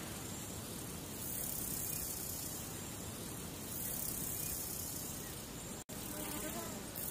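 A steady hiss of noise with no clear tones, cut off for a split second about six seconds in.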